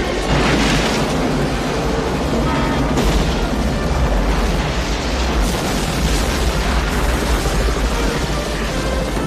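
Film sound effects of a train crash exploding: a continuous deep rumble of blasts and fire, with fresh explosions about a third of a second in and around three seconds in, and music underneath.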